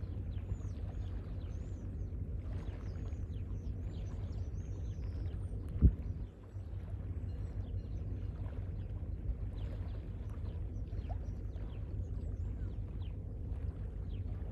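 Steady low rumble of wind buffeting the microphone, with faint high bird chirps scattered over it and one sharp thump about six seconds in.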